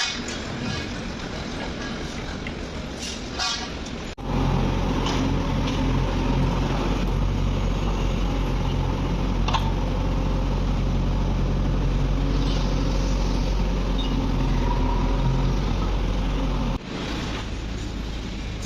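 Heavy construction machine's engine running steadily with a low hum, broken off abruptly twice by cuts.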